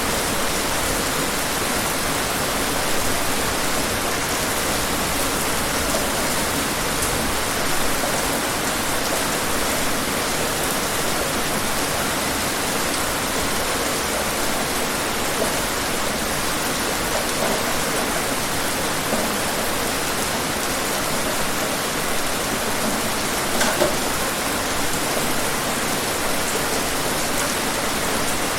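Steady rain falling outdoors: an even hiss of rainfall, with scattered louder drops and a brief heavier patter near the end.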